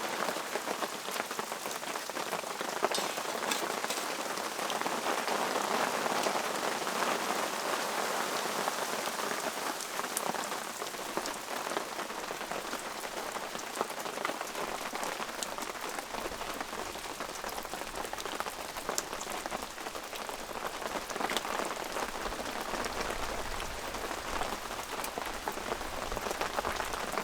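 Steady rain falling, with many sharp little ticks of single drops striking a surface throughout. A low rumble joins about two thirds of the way in.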